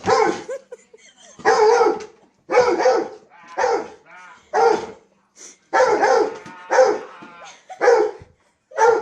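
A dog barking repeatedly, about nine barks roughly a second apart.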